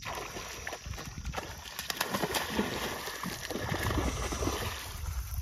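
Hooked fish thrashing and splashing at the water's surface while held on a bent fishing rod: an irregular, crackling slosh of water, heavier from about two seconds in.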